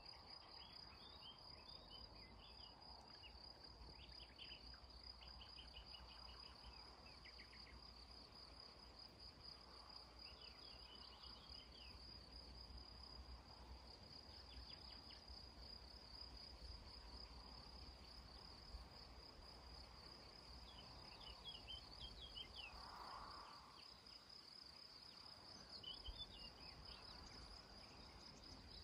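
Faint meadow ambience: a cricket's steady, high, evenly pulsed trill throughout, with short snatches of songbird song every few seconds and a faint low wind rumble on the microphone.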